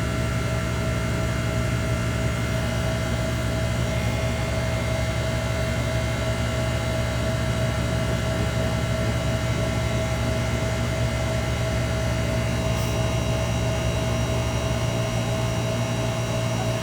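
City bus running, heard from inside: a steady low drone with a steady whining tone over it. Near the end the deepest part of the drone drops away.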